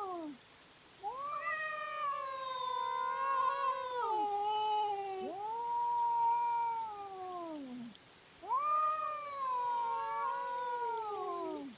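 A cat yowling (caterwauling): a series of long, drawn-out wails, each rising quickly and then sliding slowly down in pitch, with short breaks between. This is the fierce warning call that cats give when facing off before a fight.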